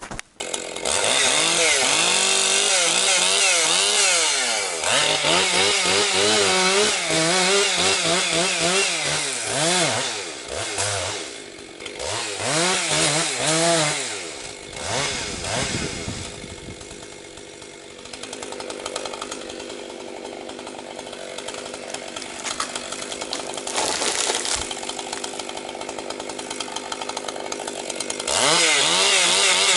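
Husqvarna 262XP two-stroke chainsaw, freshly rebuilt, running while bucking firewood: the engine revs rise and fall over and over for the first half, then the saw runs quieter and steadier for about ten seconds before revving up again near the end.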